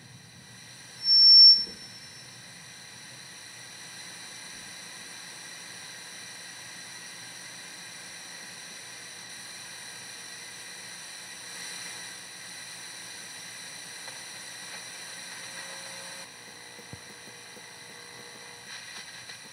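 A steady hiss, broken about a second in by a short, loud, high-pitched tone.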